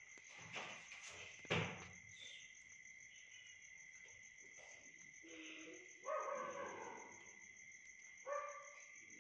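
Faint, evenly pulsing trill of crickets, with a short knock about a second and a half in. From about five seconds in come a few drawn-out whining animal calls, each falling in pitch.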